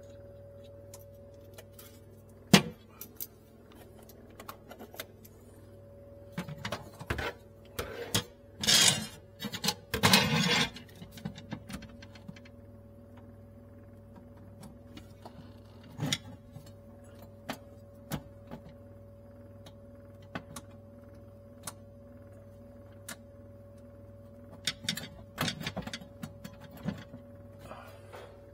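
Hands working refrigerant tubing and wiring inside a refrigerator cabinet: scattered clicks, taps and rustling, with a sharp click about two and a half seconds in and longer scraping and rustling around eight to ten seconds. A steady low hum runs underneath.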